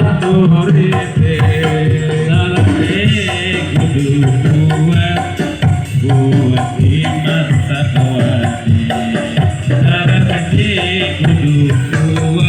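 A recorded Javanese song played back through a miniature sound system: an instrumental passage with hand-drum percussion and melodic instruments, without vocals.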